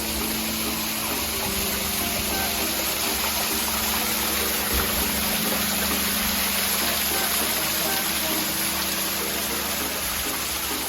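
Steady rush of flowing spring water.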